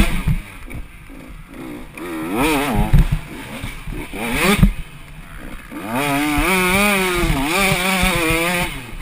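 Dirt bike engine being ridden hard: short bursts of throttle that rise in pitch about two and four and a half seconds in, then held at high revs, wavering, for nearly three seconds near the end. Under it are low knocks and wind rumble from the rough track.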